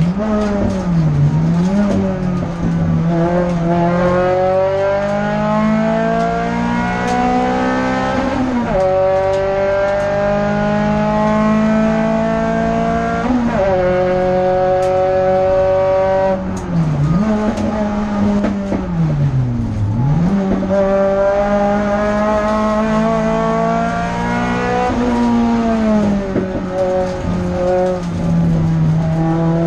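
Renault Clio F2000 hillclimb car's engine heard from inside the cabin under full acceleration. Its pitch climbs steadily through each gear and drops sharply at the upshifts, about 9 and 13 seconds in. Around 17 to 20 seconds in it falls and picks up again twice, as the driver brakes and downshifts for a bend, before pulling hard again.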